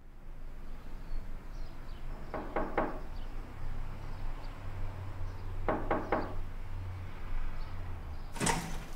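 Knuckles knocking on a wooden front door with glass panes: two rounds of three quick knocks a few seconds apart, over a low background hum. A louder sharp clatter comes near the end.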